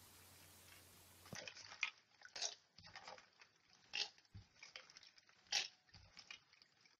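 Faint, irregular clicking and rattling of land-snail shells knocking against one another as they are handled, starting about a second and a half in.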